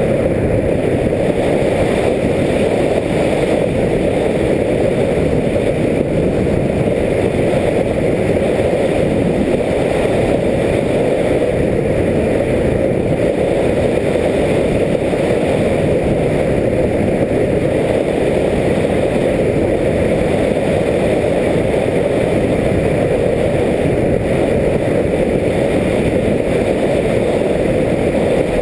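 Steady rush of airflow and propeller noise on the onboard camera of a radio-controlled plane in flight.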